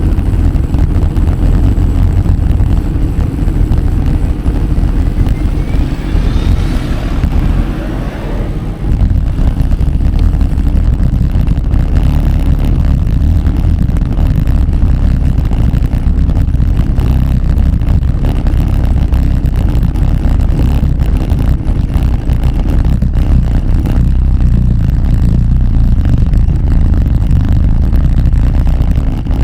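Loud, steady low rumble of wind buffeting the microphone while riding a bicycle, with a rising whine about six to eight seconds in.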